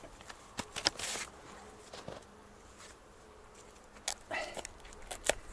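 A few faint, scattered short scrapes and clicks from handling and carving the wood and bark pieces of a bow-drill fire kit.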